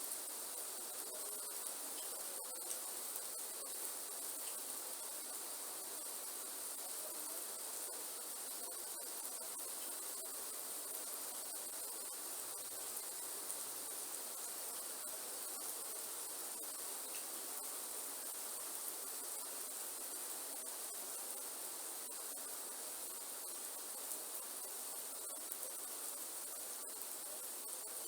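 Steady rainforest rain ambience: an even hiss of rain with faint scattered drip ticks, under a constant high-pitched insect chorus.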